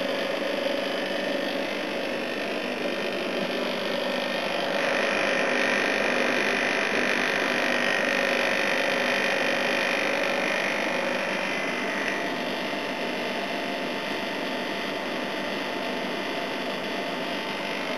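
Air-conditioning unit running on test, its compressor humming and its fan blowing air. The sound is steady, grows a little louder with a brighter hiss between about five and eleven seconds in, then settles back.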